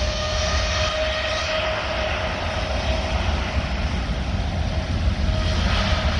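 Boeing 787 Dreamliner's twin jet engines at full takeoff power during the takeoff roll: a steady rush of jet noise with one held whine over a deep rumble, growing a little louder near the end.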